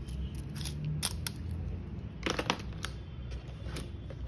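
Handling clicks of a small tape measure and a moulded plastic tool case: a few sharp clicks and knocks, with a short cluster about halfway through, as the tape is set back into its slot in the case.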